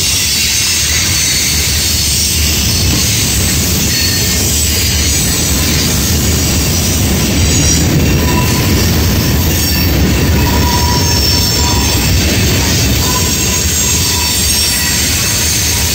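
Freight train cars (covered hoppers and tank cars) rolling past close by: a steady loud rumble of steel wheels on rail. A faint high wheel squeal comes and goes in the second half.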